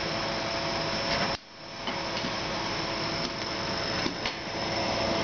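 Refrigeration test rig running: a steady mechanical hum and whir with several fixed tones. The sound briefly drops out about a second and a half in and fades back up. A few light clicks come near the end.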